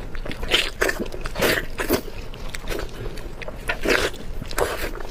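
A person chewing and eating food close to the microphone: irregular short mouth and chewing sounds, a few a second.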